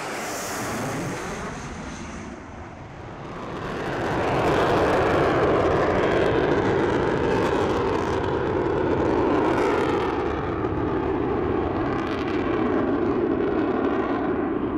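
Avro Vulcan XH558's four Rolls-Royce Olympus turbojets as the bomber flies overhead. The loud jet noise swells about four seconds in and then holds steady.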